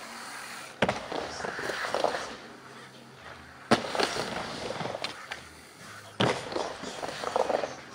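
Skateboard wheels rolling on a wooden half-pipe ramp, with three sharp slaps of the board hitting the ramp: about a second in, near the middle, and a little after six seconds.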